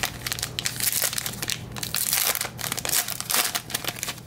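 Foil trading-card pack wrapper being torn open and crumpled in the hands, a dense, irregular crinkling and crackling of the metallic foil.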